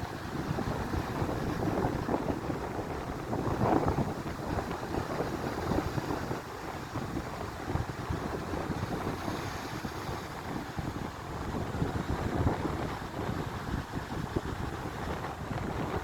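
Wind buffeting the microphone over sea surf on the shore of the Sea of Azov: a rough, gusty rumble with louder swells about four seconds in and again past the twelve-second mark.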